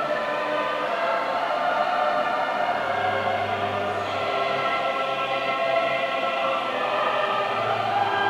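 Choral music: many voices holding long, slowly changing chords.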